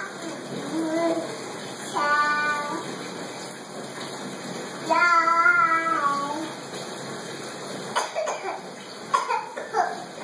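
Toddler babbling and cooing in short wordless vocal sounds: a high squeal about two seconds in, a longer drawn-out vowel about five seconds in that falls in pitch at its end, and a few short babbled bursts near the end.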